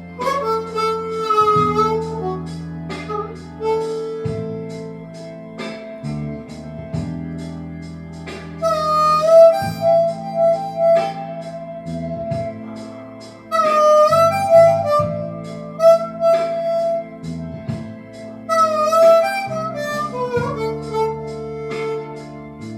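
Blues harmonica playing held notes with bends, over a steady low backing with plucked notes.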